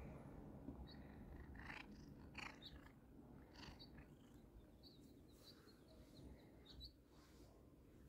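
Domestic black cat purring faintly while being petted, with a few soft rustles.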